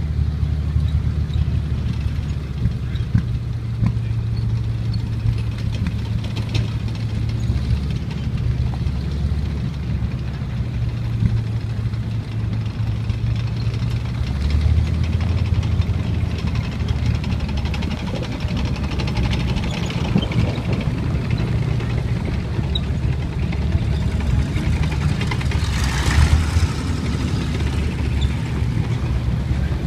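Engines of World War II armoured vehicles, a tracked light tank and then an M8 Greyhound six-wheeled armoured car, running as they drive slowly past. A low, steady engine drone shifts in pitch several times. Near the end comes a brief rush of hissing noise.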